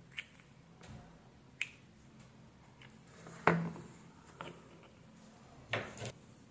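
Sharp clicks and small knocks of a disassembled aquarium air pump's parts being handled: the white plastic air chamber is pulled off the rubber diaphragm and the pieces are set down on the work mat. The loudest knock comes about three and a half seconds in, and a double tap comes near the end.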